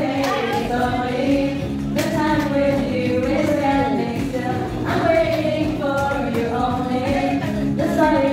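Group singing along with music, several voices carrying a melody over a steady backing track.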